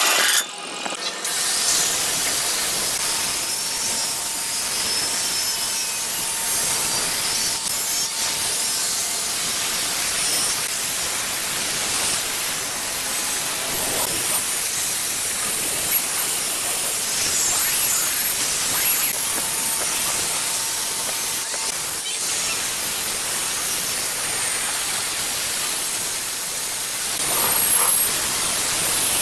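Angle grinder with a sanding disc held against a large wooden vase spinning on a lathe: a steady high motor whine over the hiss of abrasive on wood.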